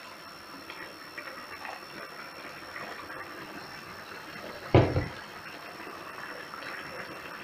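Water poured from an electric kettle onto the rice in a cast-iron kazan of plov, then the liquid bubbling on the hot rice as a small top-up of water for rice that is not yet cooked through. A heavy double thump about five seconds in.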